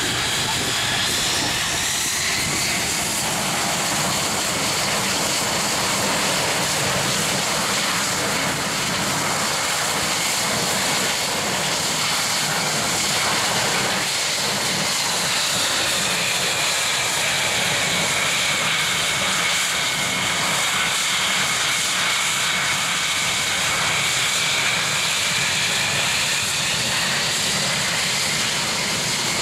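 Saab 37 Viggen's Volvo RM8 turbofan running: a steady jet roar with a high turbine whine that rises in pitch about two seconds in, sinks around the middle and climbs again near the end.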